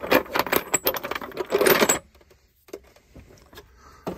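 Galvanized and brass pipe fittings clinking and rattling against one another as a hand rummages through a bin of them. The clatter stops about halfway through.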